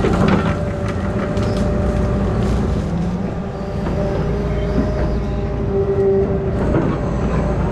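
Heavy diesel machinery of a grapple saw truck running steadily, a deep engine rumble with held whining tones from the hydraulics over it. A few sharp knocks come right at the start.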